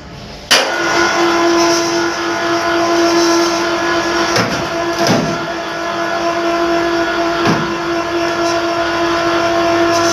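Small single-roping dumbwaiter lift motor running with a steady hum, starting suddenly about half a second in, with a few clicks along the way. The noise is a motor sound problem, which the uploader puts down to high voltage.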